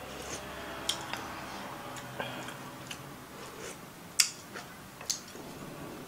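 Eating sounds close to the microphone: ramen broth sipped from a wooden spoon and chewed, punctuated by several sharp clicks, the loudest about four seconds in.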